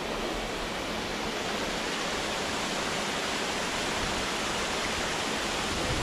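Water of a small waterfall rushing and splashing steadily over rock, right at the microphone.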